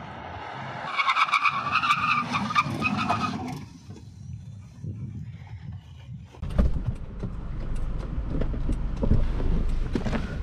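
Maruti Suzuki Swift's tyres squealing for about three seconds under hard emergency braking from 80 km/h. Some seconds later wind rumbles on the microphone, with a few knocks and scuffs.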